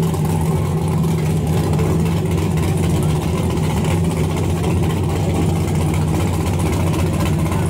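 Fox-body Mustang drag car's engine idling steadily while the car is eased forward into position at the starting line.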